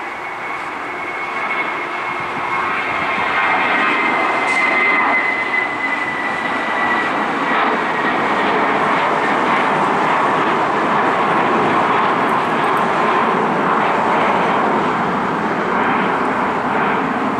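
Spirit Airlines Airbus A320-family jet climbing out just after takeoff, its engines at climb power making a loud steady roar. A high engine whine sinks slightly in pitch through the first several seconds as the roar builds, then holds.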